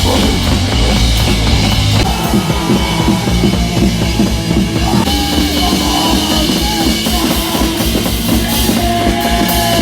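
Loud rock music with a driving drum-kit beat and heavy bass.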